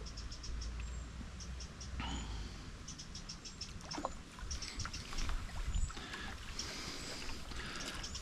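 Faint water splashing and sloshing as a hooked common carp wallows at the surface close in, with scattered short high ticks.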